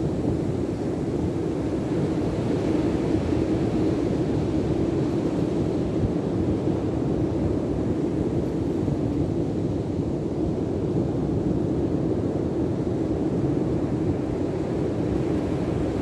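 Steady low rumble of breaking sea surf mixed with wind buffeting the microphone.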